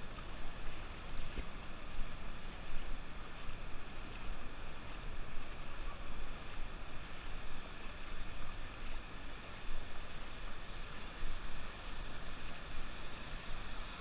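Ocean surf washing up the beach as a steady rushing noise that swells and falls, with a low rumble of wind on the microphone.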